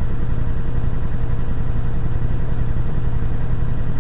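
A loud steady low hum with a hiss over it, unchanging throughout.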